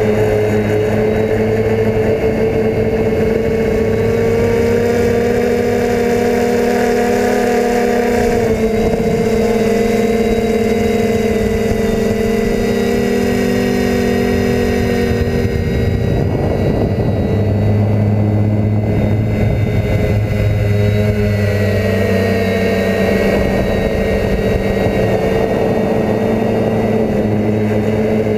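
DJI F450 quadcopter's brushless motors and propellers humming loudly as heard from the GoPro on its frame, a steady multi-toned drone whose pitch shifts several times as the throttle changes.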